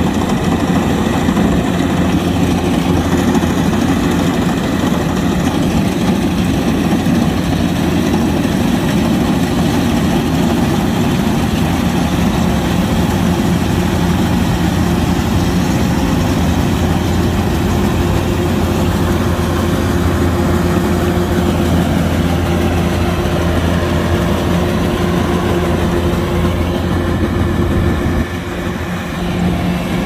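Kubota DC-105X combine harvester's diesel engine running steadily at a constant speed, with an even clatter of machinery over its low note; the sound drops in loudness near the end.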